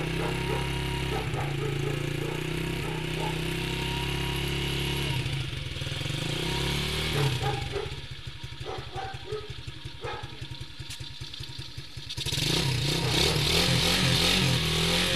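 Small single-cylinder 125 cc four-stroke ATV engine running. It is steady at first, drops to a quieter, fast, even putter about five seconds in, and gets louder again about twelve seconds in.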